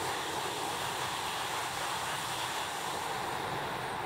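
E5 series Shinkansen train passing at high speed: a steady rushing of air and wheels on rail that thins out near the end as the last cars go by.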